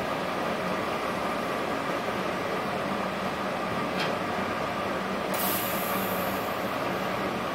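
Steady fan and pump hum from a switched-on Multipro TIG 400D DC welding inverter and its torch water-cooling unit, idling before the weld. A click about four seconds in, then a brief high hiss a little over a second later.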